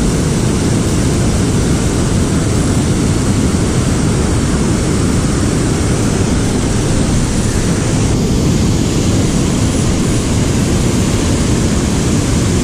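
Loud, steady rush of river water pouring over a dam spillway and churning past a wader's legs.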